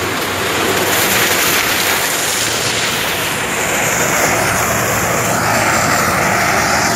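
Sugarcane harvester running as it cuts cane: the engine together with the chopping and the extractor fan blowing trash off the elevator, a loud, steady mechanical drone.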